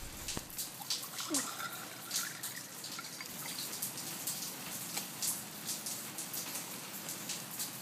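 Water dripping: irregular light drips and ticks over a faint steady hiss.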